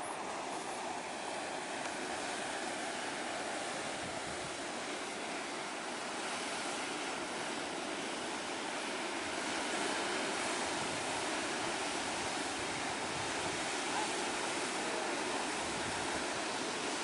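Sea surf breaking on a rocky shore: a steady wash of noise that swells slightly about ten seconds in.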